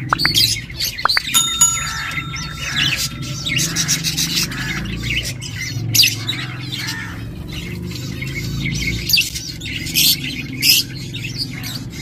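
A flock of budgies and cockatiels chirping and squawking, with many short high calls overlapping, and a few sharp clicks near the start.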